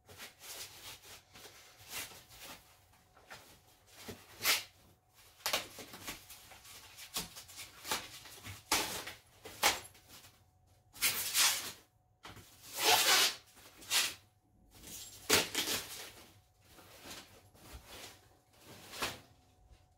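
Rustling and tearing of packaging being pulled off a new mountain bike, in irregular bursts of about half a second to a second, the loudest a little past the middle.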